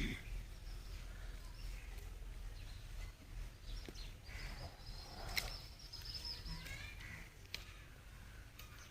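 Birds chirping now and then, with one longer high call about halfway through, over a low steady rumble and a few sharp clicks.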